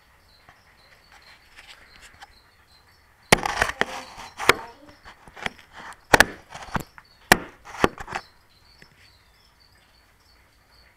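A run of sharp knocks and clicks, about a dozen over some five seconds, starting a few seconds in, over a cricket chirping faintly and steadily.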